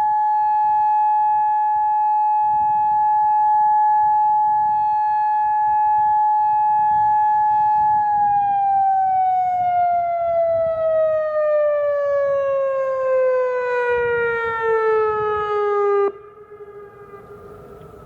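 Federal Signal Modulator outdoor warning siren holding a loud steady tone, then falling steadily in pitch as it winds down at the end of its test signal. The sound drops off suddenly about sixteen seconds in, leaving a faint low tone.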